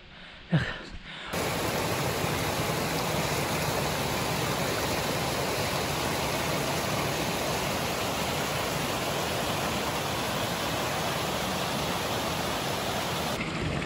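Mountain stream water rushing and splashing over rocks in a steady, even rush that cuts in abruptly about a second in.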